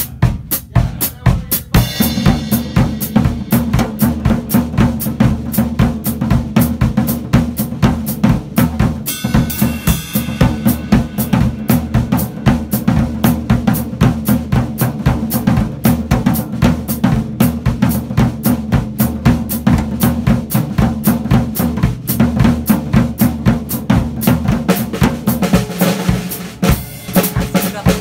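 Acoustic drum kit played with sticks: a steady, fast beat on bass drum, snare and cymbals, with a cymbal crash about two seconds in and another around nine seconds, and a brief break near the end before the beat picks up again.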